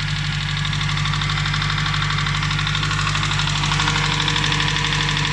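Nissan Primera P11's SR20DE four-cylinder engine running steadily, with a rapid, even ticking knock from the top end. The owner puts it down to the hydraulic valve lifters, with the oil too thick.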